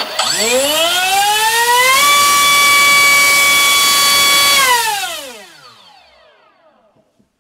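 NTM PropDrive 3536 1800kV brushless outrunner motor driving a 5x5 propeller on a thrust stand. It winds up to a high whine over about two seconds and holds steady at full throttle for a couple of seconds. It then spools down in a falling whine that fades out about two seconds later.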